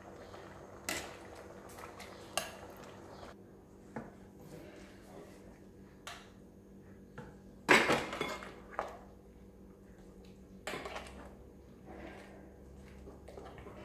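Metal ladle knocking and scraping against an aluminium soup pot while stirring soup, a handful of scattered clinks with short ringing, the loudest about eight seconds in.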